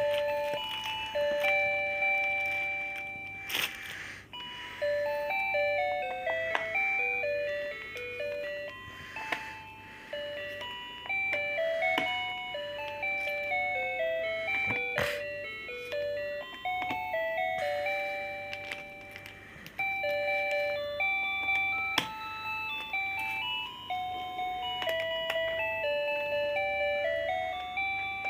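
A children's projector drawing table's built-in music chip playing a simple electronic melody of single beeping notes, with a few sharp clicks.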